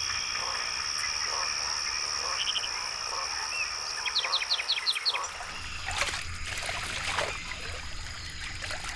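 Night-time chorus of frogs and insects with a steady high-pitched trill, joined about four seconds in by a short run of quick chirps, and a few short noisy sounds over the last few seconds.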